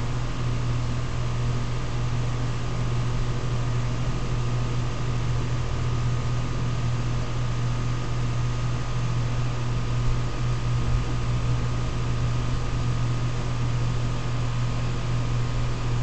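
Lennox XC15 3.5-ton central air conditioner's outdoor unit running at full output: a steady low hum with fan rush over it. It runs quiet for a unit five years in service.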